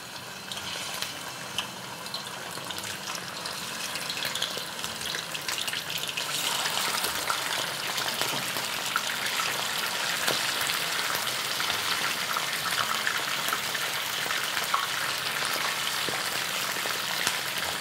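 Raw chicken pieces sizzling and crackling in hot oil in a wok. The sizzle grows louder over the first few seconds as more pieces go in, then holds steady.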